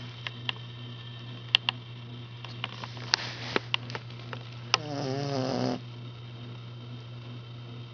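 Eight-week-old boxer puppy snoring in its sleep: a breath in about three seconds in, then one wavering, rattling snore lasting about a second near the middle. Several sharp clicks come in the first half, over a steady low hum.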